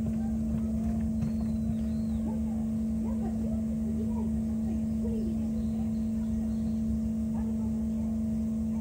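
A steady low hum, as of machinery, with faint distant voices mixed in.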